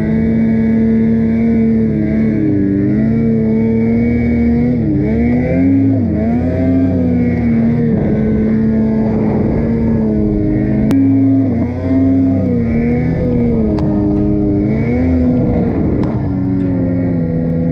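Ski-Doo Summit 850 snowmobile's two-stroke twin engine running hard while riding through deep powder, its pitch dipping and climbing again a few times as the revs change.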